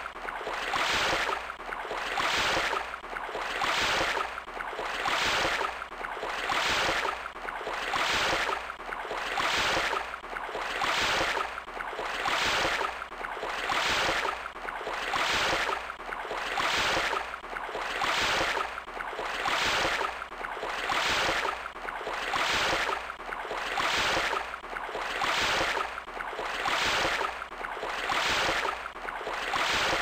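Waterfall sound effect: rushing, splashing water that swells and fades in an even rhythm a little under once a second.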